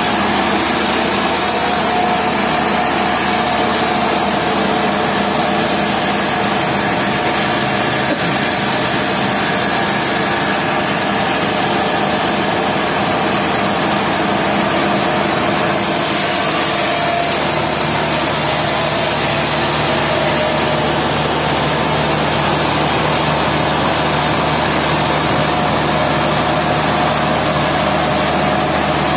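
Sawmill machinery running steadily: engine and saw. About seventeen seconds in, a lower steady hum comes in.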